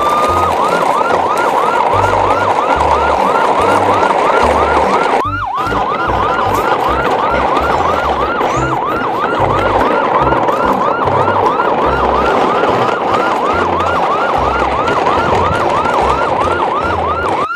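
Electronic siren in a fast yelp, its pitch sweeping up and down about three times a second. It briefly drops and starts again about five seconds in.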